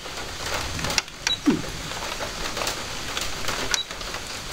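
Singer Patchwork 7285Q computerized sewing machine's control panel being operated: a few button clicks and two short high electronic beeps, about a second in and near the end.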